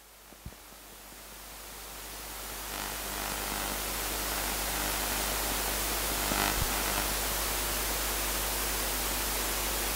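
Steady electronic hiss of an empty microphone channel, just after the microphone has been switched off. It swells over the first two or three seconds and then holds steady, with a faint click about half a second in.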